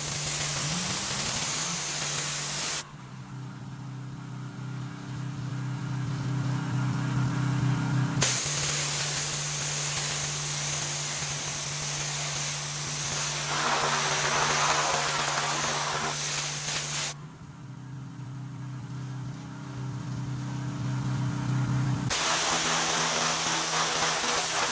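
Pressure washer running with a steady low engine hum and the hiss of the high-pressure water spray on concrete. The spray stops suddenly twice for about five seconds while the engine keeps running.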